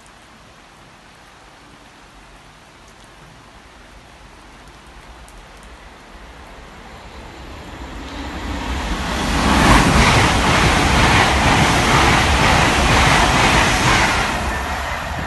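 Class 801 Azuma electric train running through the station at speed on wet track: a broad rush of wheel, rail and air noise that builds from faint over about four seconds, stays loud for about five, then begins to fade.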